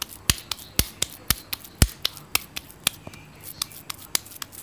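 Hands patting a raw minced-beef kebab patty flat between the palms: a quick, uneven run of sharp slaps, about two strong ones a second with softer ones in between.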